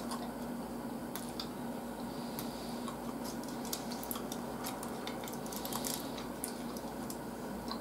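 Metal spoon clicking and scraping lightly against a glass bowl and a red bowl as sticky grated yam is scooped and ladled, a scatter of small clicks over a faint steady hum.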